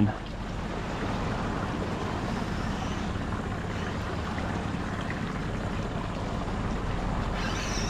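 Steady wind and water noise with a faint low hum underneath.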